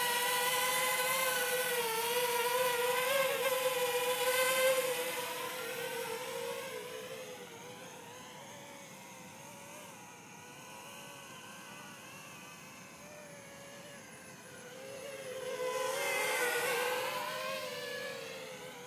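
JME quadcopter drone's motors and propellers humming in flight at a steady pitch, close at first, then fading as it flies off. It grows louder again about sixteen seconds in as it comes back past, its pitch sliding, and then fades once more.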